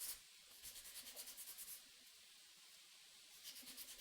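Hand sanding of a wooden knife handle: faint, rapid back-and-forth rubbing strokes, one spell from about half a second in to nearly two seconds, and another near the end.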